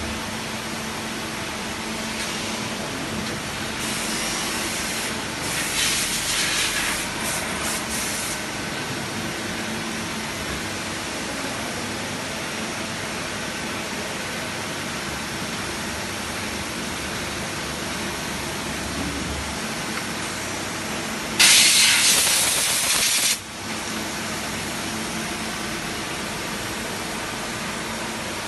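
Compressed air hissing from a blow gun on a coiled air hose: a few short spells several seconds in and one louder, two-second blast about three quarters of the way through that cuts off sharply. A Mazak CNC lathe and the shop hum steadily underneath.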